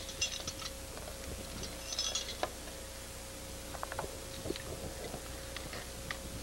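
Faint scattered clicks and a brief scrape about two seconds in, from an ice climber's hardware and tools against the ice, over a steady thin hum.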